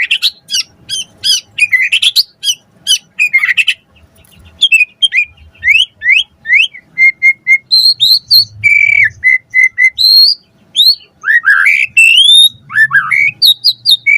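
White-rumped shama (murai batu) singing a fast, varied song: rapid sharp notes for the first few seconds, a brief pause, then rising whistled slurs and runs of short repeated notes.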